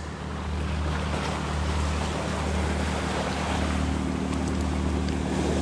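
Small waves washing steadily against a rocky shore, with wind blowing on the microphone and a low steady hum underneath.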